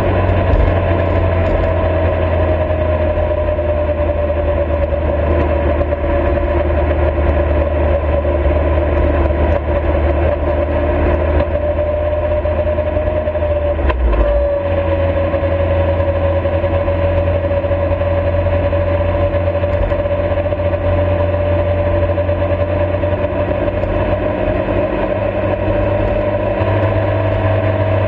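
Motorcycle engine running steadily at cruising speed, with a strong low rumble of wind and road. There is one brief break in the sound about halfway through.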